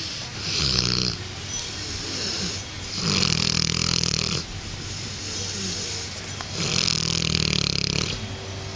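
Neapolitan Mastiff snoring while awake: three loud snoring breaths, each a second or so long and about three seconds apart, with quieter breathing in between.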